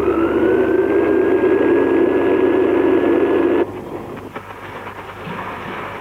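Whistle of a New South Wales Government Railways 38 class Pacific steam locomotive sounding one long blast of about three and a half seconds. Its pitch settles just after it starts, then it cuts off sharply, leaving the quieter sound of the slow-moving locomotive with a few faint knocks.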